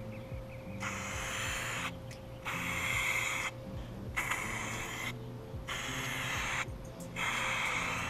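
Aerosol spray-paint can, fired through a pistol-grip trigger handle, hissing in five short sprays of about a second each with brief pauses between: a coat of paint going on in passes.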